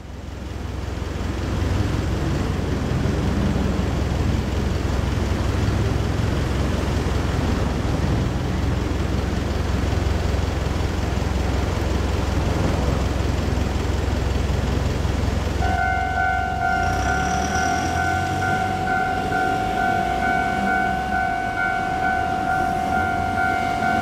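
A steady low rumble, then about sixteen seconds in a railway level-crossing warning bell starts ringing, a steady high two-tone ringing that pulses rapidly and keeps going.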